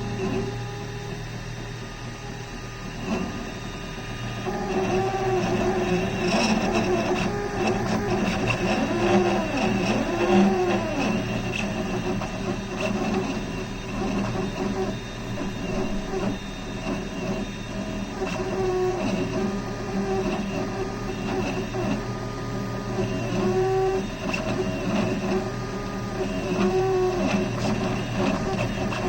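Stepper motors of a desktop CNC-type machine (3D printer, laser engraver or router) driving the axes. They whine in tones that keep shifting pitch, starting and stopping as the head changes speed and direction, over a steady low hum.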